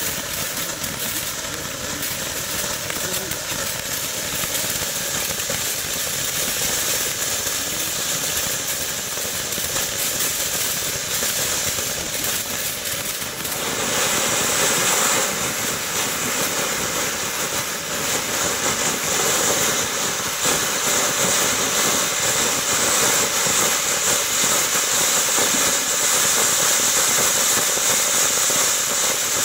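A 200 g ground fountain firework burning with a steady spraying hiss, flecked with small crackles from its sparks. About fourteen seconds in, it grows louder and brighter in tone.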